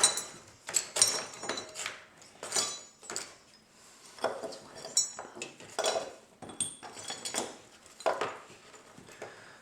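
Small loose metal hardware clinking and rattling as it is picked through and set down in an old toolbox: a string of sharp, ringing metallic knocks about once a second.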